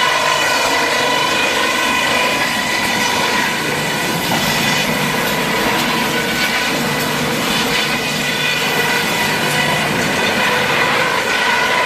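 Industrial wood crusher running steadily, a constant machine whine with overtones over a dense grinding noise.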